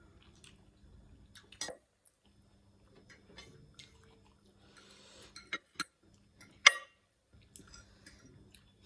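Eating sounds from a bowl of spicy ramen: soft chewing and mouth sounds with scattered sharp clicks and taps, the loudest about two-thirds of the way in.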